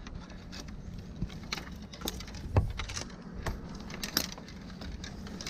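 Tree-climbing and rigging hardware clinking and jangling in irregular light clicks and knocks as the climber moves about, over a steady low hum.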